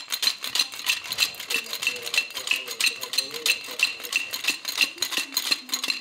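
Stainless-steel cocktail shaker shaken hard by hand, loose pieces inside clacking against the metal in a fast, even rattle of about five strokes a second that stops abruptly.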